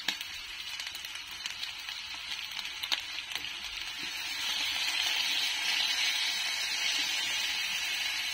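Chicken pieces sizzling in a wok in their own rendered fat, with soy sauce just poured over them. The sizzle swells about halfway through, with a few light taps in the first half.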